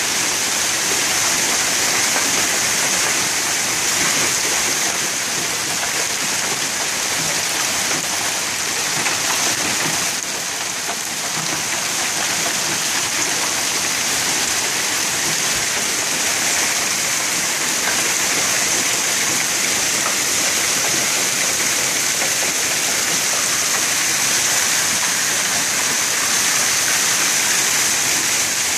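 Hail mixed with rain falling hard on grass, pavement and parked cars: a dense, steady hiss that eases slightly for a moment about ten seconds in.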